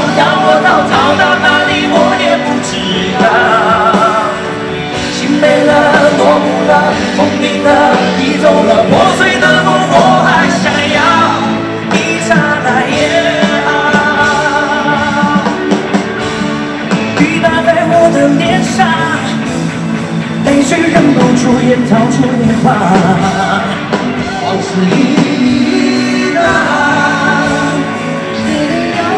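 Live pop-rock song: a man singing into a microphone over a full band with electric guitar, amplified through a concert PA.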